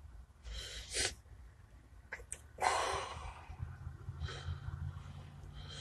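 A man breathing audibly through his nose between sentences: a few short breaths, the loudest about three seconds in, with a couple of small clicks before it. A faint low steady hum sits underneath.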